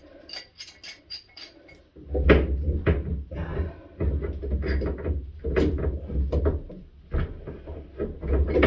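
A wrench knocking and scraping against a corroded drain pipe in the wall as it is worked back and forth to break the pipe loose. Light clicks at first, then from about two seconds in, a run of uneven clanks and scrapes.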